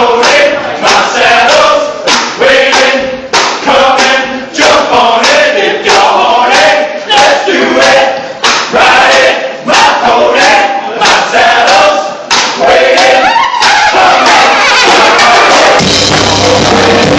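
A crowd of voices singing together in a steady, chant-like rhythm. About fourteen seconds in it gives way to a continuous loud wash of sound, and low held notes join in near the end.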